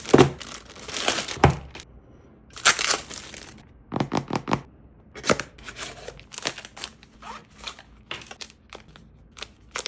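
Product packaging being unboxed: plastic wrap and paper crinkling and tearing in several rustling bursts, then scattered light clicks and taps as the box and its parts are handled.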